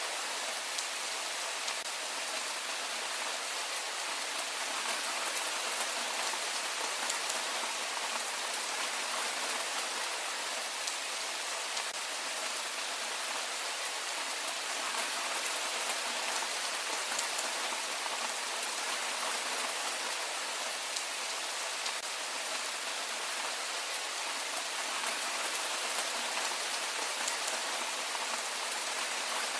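Steady heavy rain falling, an even hiss with scattered drop ticks.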